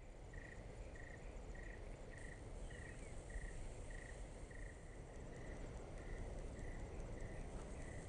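Insect calling in a steady rhythm, short chirps at about two a second, over a low, even background rumble.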